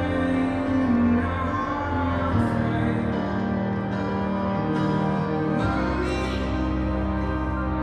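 Slow music with long held notes and a deep bass line that changes every few seconds, with a singing voice coming in near the end.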